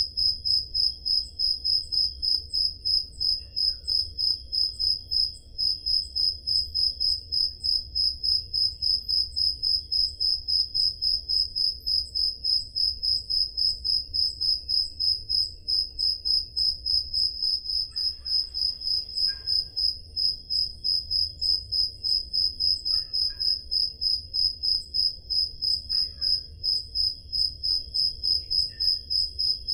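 Crickets chirping on a summer night: one loud, high cricket repeating an even chirp about three times a second, over a fainter steady trill from other insects.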